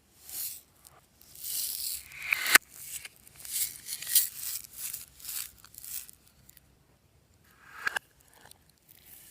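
Glossy slime being squished and stretched by hand: a run of irregular hissing, crackling bursts, with a sharp pop about a quarter of the way in and another near the end.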